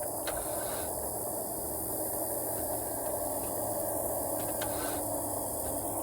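A few faint clicks over a steady hiss as the Kia minivan's starter is tried, with no sound of the engine cranking or catching, which the owner takes for a locked-up motor.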